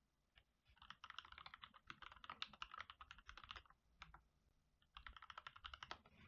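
Faint typing on a computer keyboard: a run of quick keystrokes lasting about three seconds, a short pause, then a second, shorter run of about a second near the end.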